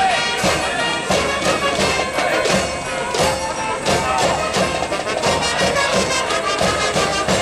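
Brass band with drums playing a cheering tune from a school cheering section in the stands, the drums keeping a steady beat under the held brass notes.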